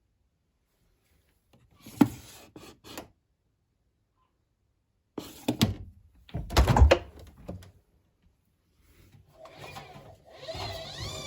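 Clunks and knocks from a washing machine being handled: a sharp knock with a short rattle, then a louder cluster of thuds and clatters, like the door or detergent drawer being opened and shut. Near the end a fainter pitched sound starts, its tones gliding downward.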